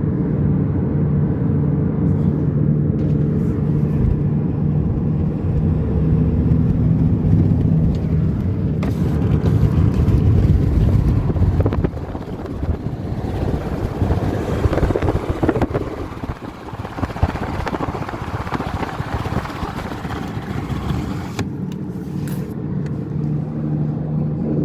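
Toyota RAV4 driving, heard inside the cabin: a steady low droning hum from a defective left rear wheel bearing, over tyre and road noise. About halfway through, the low hum drops back and a higher rushing road noise swells for several seconds, then the drone returns near the end.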